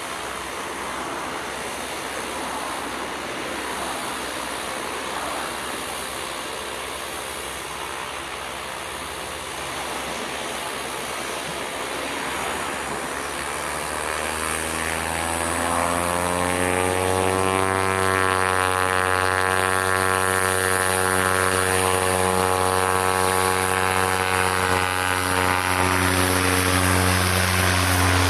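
Cessna 208B Grand Caravan's single PT6A turboprop engine and propeller running. The sound is a rushing haze at first, then a steady propeller drone with a strong low hum grows in over the second half and gets louder, rising slightly in pitch before levelling off.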